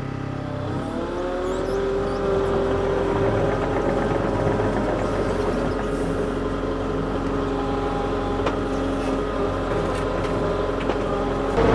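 KATO CL35 compact track loader's diesel engine revving up about a second in, then running steadily at working speed as the machine drives up to the logs. It grows louder just before the end.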